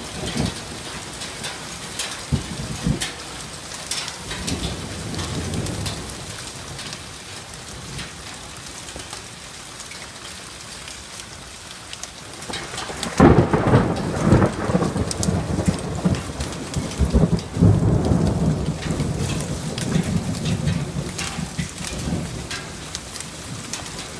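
Thunderstorm: steady heavy rain with many sharp drop ticks, and about halfway through a sudden loud clap of thunder that rolls on as a rumble for several seconds.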